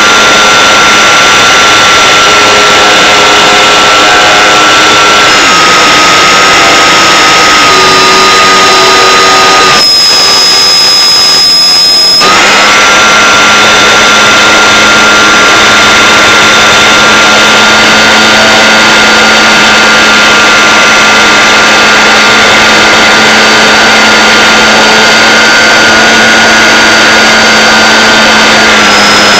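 Electric motor of a Phoenix Evolution 2600 RC glider running in flight, a loud steady whine over heavy hiss. Its tones step down in pitch a few times, drop out for about two seconds a third of the way in, then come back.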